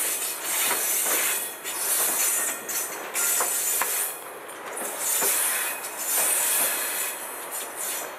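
Freight train's lumber-loaded centerbeam flatcars rolling slowly past, their steel wheels on the rail making a high rushing noise that swells and fades, with scattered clicks. It drops away near the end as the last car goes by.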